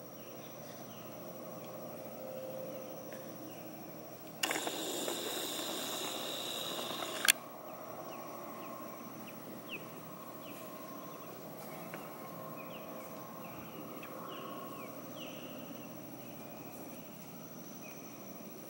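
Dusk outdoor ambience: a steady high-pitched insect drone with scattered short falling chirps. About four and a half seconds in, a loud noise starts suddenly, lasts nearly three seconds and ends in a sharp click.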